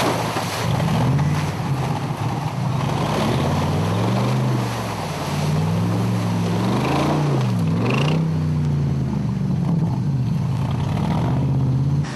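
Off-road 4x4 engine revving up and down repeatedly under load, the pitch climbing and dropping every second or two.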